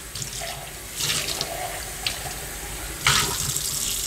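Kitchen faucet running into a stainless-steel sink while a ceramic mug is rinsed under the stream. The splashing grows louder about a second in and again about three seconds in.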